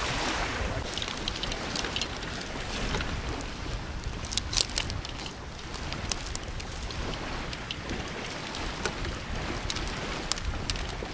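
Small wood campfire burning, crackling with sharp irregular snaps and pops, the loudest about four and a half seconds in, over a steady low rush of wind.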